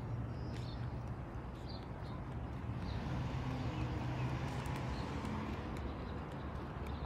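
Outdoor ambience: a steady low rumble with light ticking footsteps and a few faint high chirps.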